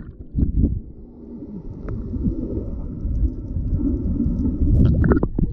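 Muffled underwater sloshing and rumble of lagoon water, heard through a submerged waterproof camera housing, with a few short knocks near the start and near the end.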